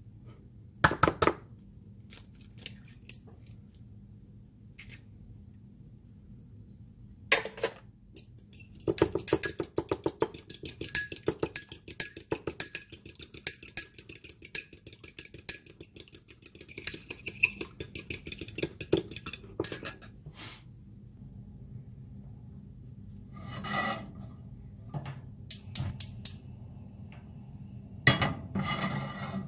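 Metal kitchen utensils clinking against dishes: a few separate knocks, then a fast, even run of clinks lasting about ten seconds, and more clatter near the end.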